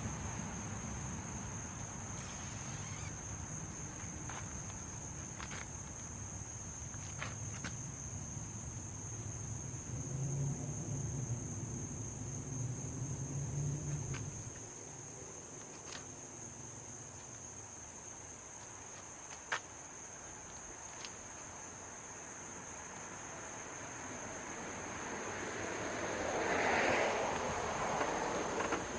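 Steady high-pitched droning of insects. A low rumble runs underneath for the first half, a few sharp clicks fall through the middle, and a swell of noise builds near the end.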